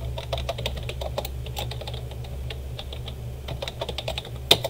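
Typing on a computer keyboard: a run of quick key clicks, with one louder click near the end, over a steady low hum.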